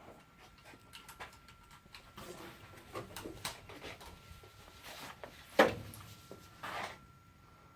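Faint scattered clicks and knocks over a faint steady high tone, with a sharper knock about five and a half seconds in and a smaller one near seven seconds.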